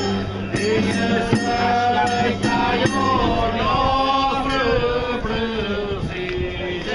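A singer holding long, sliding notes in a Portuguese folk song, over plucked string accompaniment that strikes a steady beat.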